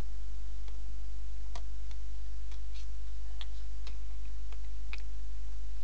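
Irregular light clicks and ticks of a screwdriver turning out a screw from a cordless drill's motor and planetary gearbox housing, over a steady low hum.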